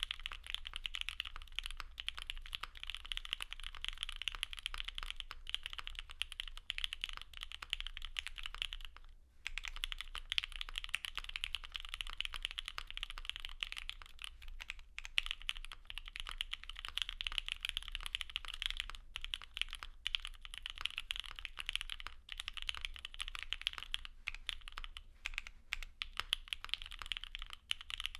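Continuous fast typing on a gasket-mounted 65% mechanical keyboard with Gateron Oil King linear switches and GMK doubleshot ABS keycaps: a dense, rapid patter of keystrokes with a brief pause about nine seconds in.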